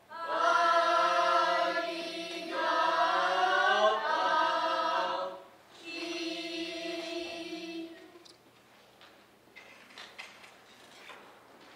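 Children's noh chorus chanting utai in unison, two long drawn-out phrases with a short break between them, stopping about eight seconds in. After that, only faint knocks and rustles.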